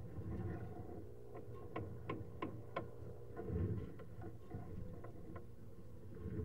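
Sewer inspection camera being pushed along a drain pipe. A run of sharp clicks and knocks, several in quick succession about a second and a half in and a few more later, over a low rumble and a faint steady hum.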